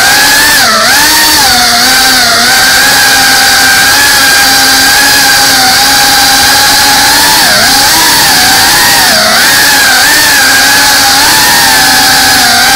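FPV drone's brushless motors and propellers whining, heard close from the camera on board. The pitch holds steady and dips and rises again several times as the throttle changes.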